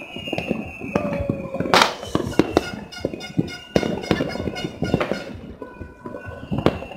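Fireworks and firecrackers going off all over a city, a dense irregular crackle of pops and bangs, the loudest bang about two seconds in. A thin high tone slides slowly down underneath.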